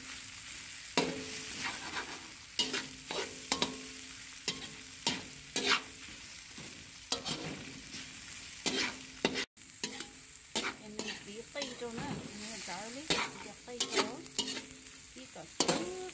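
Food sizzling in a hot pan under a steady hiss while it is stirred, with a utensil scraping and clicking against the pan many times.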